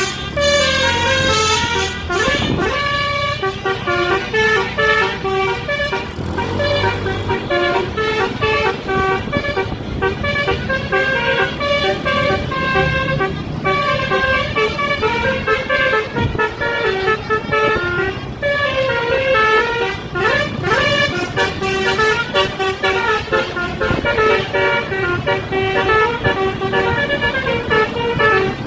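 Bus 'telolet' multi-tone air horn (basuri) playing a tune: a run of steady horn notes stepping from pitch to pitch.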